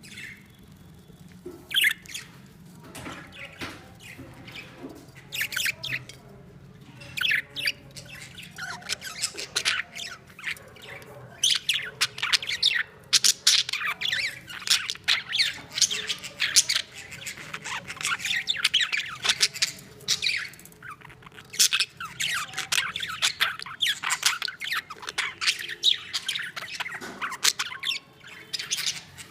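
Many caged budgies chirping and squawking: scattered calls at first, becoming a dense, continuous chatter about a third of the way in.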